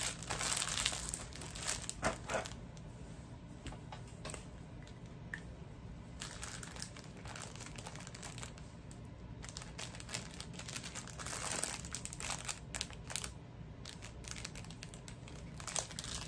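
Packaging crinkling and rustling as an item is unwrapped by hand. It comes in irregular bursts with quieter stretches between.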